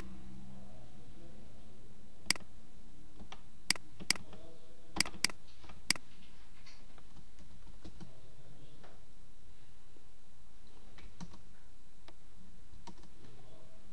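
Sharp clicks of a computer mouse and keyboard, about six in the first six seconds and fainter ones after, as shapes are selected on screen.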